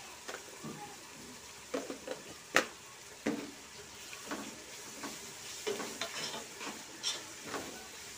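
Sliced onions and shallots with ginger-garlic paste frying in a pot with a faint steady sizzle, stirred with a wooden-handled spoon that scrapes and knocks against the pot every half second to a second. The sharpest knock comes about two and a half seconds in.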